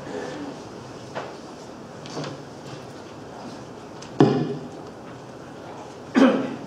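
Knocks and thumps from handling at a lectern: a couple of light ones, then two louder, sharp thuds about four and six seconds in.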